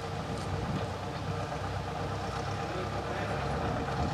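Narrow-gauge diesel locomotive engine idling steadily.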